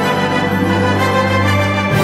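Background music with held chords, the bass shifting to a new note just before the end.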